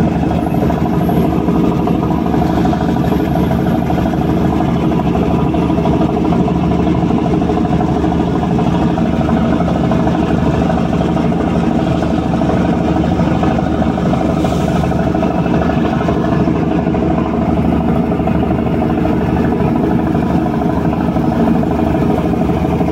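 Fishing trawler's engine running steadily at an even speed.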